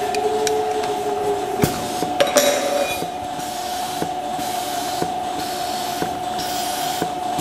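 Milking parlour machinery running with a steady tone, and pulsators clicking about once a second. In the first three seconds a few sharp clinks come from tubes and metal fittings being handled while a pulsator tester is connected into a milking cluster.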